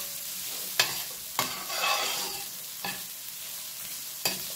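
Metal spoon stirring and scraping jackfruit seeds and onions in a stainless steel frying pan, over a steady light sizzle of hot oil. About four sharp clicks come from the spoon knocking the pan.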